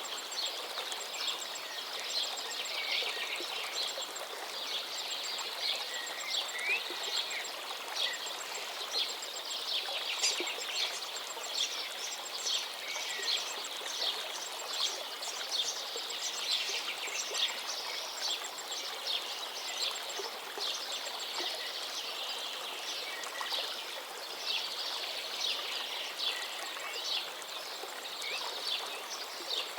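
Many songbirds chirping, trilling and singing over the steady rush of a gently flowing forest river. A quick, high, ticking call keeps recurring.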